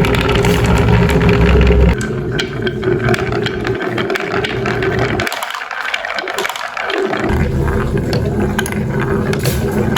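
Marbles rolling down a wooden marble run: a steady rolling rumble with many quick clicks as they knock along the track and against each other. The rumble drops about two seconds in, and the low part fades out briefly a little past halfway before coming back.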